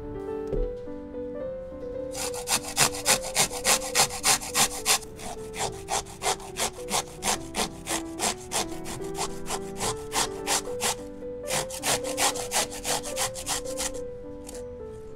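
Pickled cucumber being grated on a metal cone grater: even rasping strokes, about three a second, louder near the start and again near the end, over background music.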